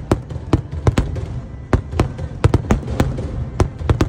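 Aerial fireworks bursting: a quick, irregular run of about a dozen sharp bangs over a continuous low rumble.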